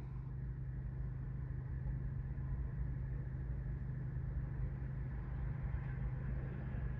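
Steady low drone of a car engine running at low speed, heard from inside the car's cabin.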